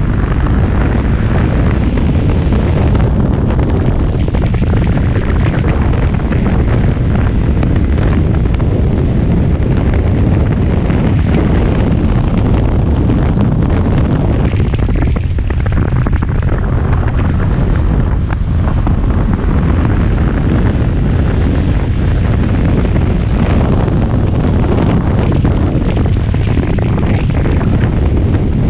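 Heavy, steady wind buffeting on the camera's microphone while riding a BMW R1200GS motorcycle at road speed, with the bike's boxer-twin engine running underneath.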